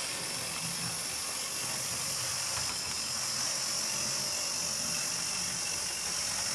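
Thomas the Tank Engine model locomotive running along the track: a steady electric motor whir with wheel noise on the rails. The owner thinks the engine needs running in.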